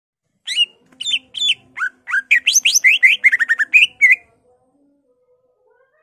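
Cucak ijo (greater green leafbird) singing a loud burst of quick whistled and chattering notes for about three and a half seconds: three spaced notes, then a fast run of rapidly gliding notes that stops shortly after four seconds in.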